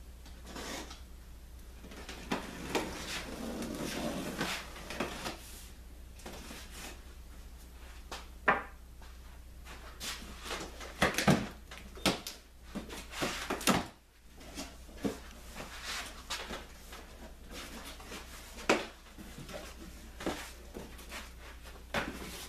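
Cardboard box being opened by hand: the packing tape along the top seam is cut and pulled, and the flaps are pried open, a run of scrapes, rips and sharp knocks of cardboard. A steady low hum sits underneath.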